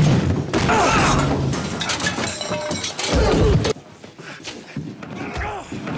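TV drama soundtrack of a violent struggle: crashing and breaking sounds mixed with shouts and grunts, over music. The heaviest crashing comes in the first second and a half, with another burst near the middle.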